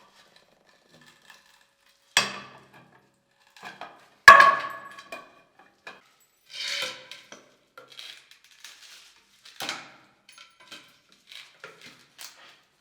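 A run of knocks and clinks of hard objects being handled, some ringing briefly; the loudest, a sharp ringing clink, comes about four seconds in.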